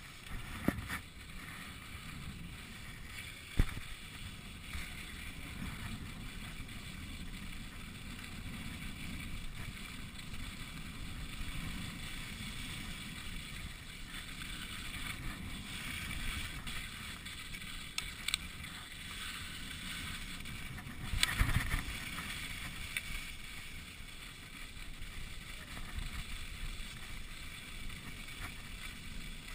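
Skis sliding over packed snow, a steady scraping hiss with a low rumble underneath. There are a few sharp knocks, one about four seconds in and a short cluster around two-thirds of the way through.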